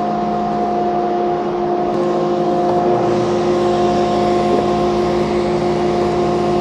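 SawStop table saw running steadily at full speed. From about three seconds in, a rising hiss joins the motor as the blade makes a shallow 1/8-inch scoring cut into an MDF panel.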